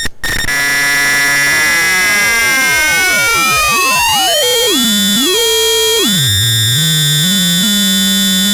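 Square-wave oscillators mixed through an XOR logic gate in a DIY modular synth, giving a metallic, buzzy electronic tone. As one oscillator is detuned, many pitches sweep up and down against each other, one rising and one falling, before settling on a steady chord. After a brief dropout right at the start, the sound runs without a break.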